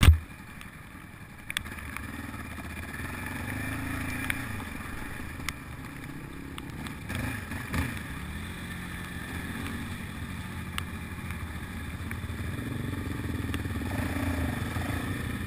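Quad bike engine running at low speed on a muddy trail, its pitch rising and falling with the throttle, with a few sharp knocks.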